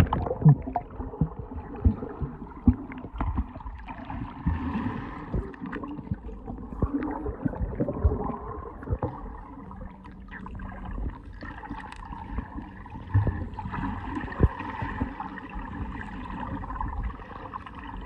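Muffled underwater sound picked up by a phone held below the surface of a swimming pool: steady gurgling water noise with many short knocks and clicks scattered through it as the swimmer moves and bubbles rise.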